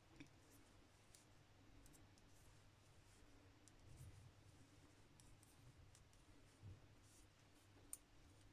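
Near silence with faint, irregular clicking of metal knitting needles as stitches are worked, with a slightly louder tick near the end.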